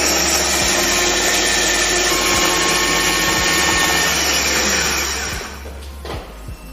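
Signora Daily Chopper, a 300-watt electric food chopper, running steadily as it minces shallots and garlic without water, held on for several seconds for a fine chop rather than a 3-second coarse one. It runs down and stops near the end.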